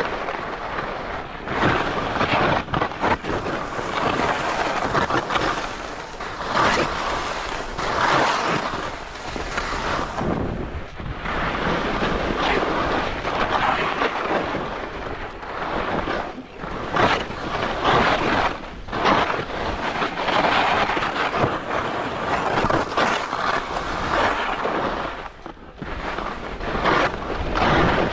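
Skis hissing and scraping over the snow during a downhill run, the rush of noise swelling and fading with each turn, with wind rumbling on the microphone.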